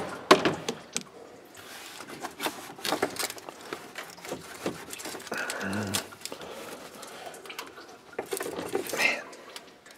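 Irregular clicks, taps and scrapes of a hand tool and a rubber upper radiator hose being worked at to free it from the thermostat housing, the hose stuck fast. A brief voice sound comes a little past halfway.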